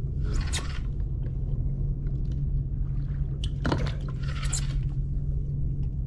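Fishing reel being cranked as a hooked fish is wound in, giving scraping, crunchy winding noises in two stretches, around the first second and again around four seconds in, over a steady low rumble.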